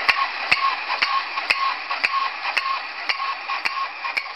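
Wind-up cymbal-playing toy monkey clashing its small cymbals about twice a second, each clash ringing briefly, over the steady whir of its clockwork mechanism.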